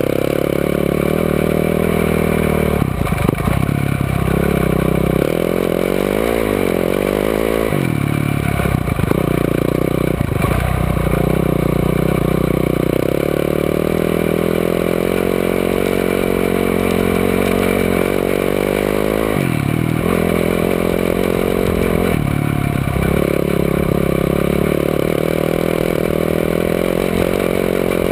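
Engine of an off-road vehicle ridden hard on a dirt track, heard from on board: revs rising and falling repeatedly, with several short dips in revs.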